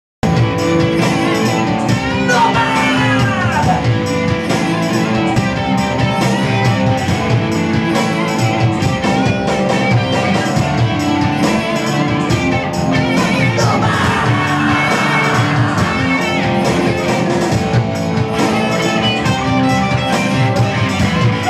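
Live rock band playing, guitar-led with bass and drums, with sliding lead lines about two seconds in and again past the middle, heard through a phone's microphone.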